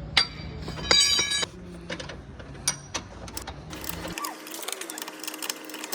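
Tools working on car suspension bolts: a short whirring burst from a power wrench about a second in, among scattered metallic clicks and knocks.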